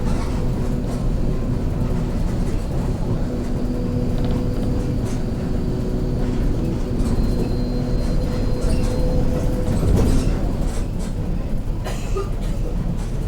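Mercedes-Benz OF-1721 city bus under way, heard from inside, with a steady growl from its differential over the engine and road noise: the sign of a noisy differential. The growl fades out about nine and a half seconds in, then there is a loud knock about ten seconds in and some rattling after it.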